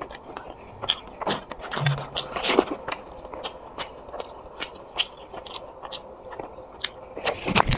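A person eating chicken curry and rice close to the microphone: irregular wet chewing clicks and mouth smacks, a few a second, with a louder cluster near the end.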